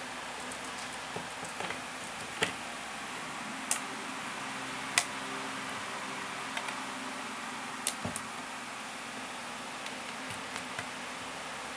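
A cat batting at a phone charger cable and plug: scattered light clicks and taps at irregular intervals over a steady background hiss.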